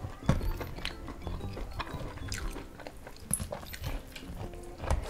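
Eating sounds of fried duck eaten by hand: irregular crisp crackles as the spiced duck is torn apart, with biting and chewing, over faint background music.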